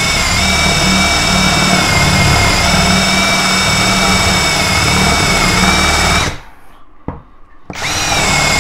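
JPT 21V brushless cordless drill boring a 16 mm hole through a wooden plank, its motor whining at a steady pitch. It stops about six seconds in, there is a single click, and it starts again near the end.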